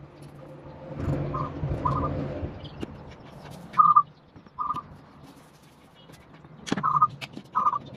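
A short two-note whistled call, repeated in pairs a few seconds apart, over low rumbling noise about a second in.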